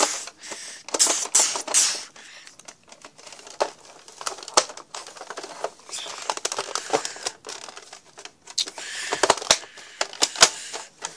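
Hard plastic toy gun handled and knocked about right at the microphone: irregular clicks, clacks and rustling, busiest in the first two seconds and again near the end.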